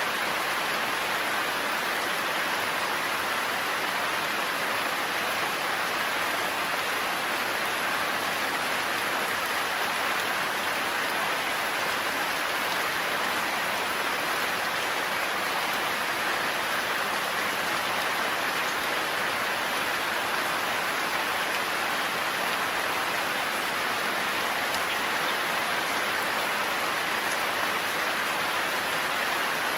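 Heavy rain falling steadily in a forest, an even, unbroken hiss with no thunder.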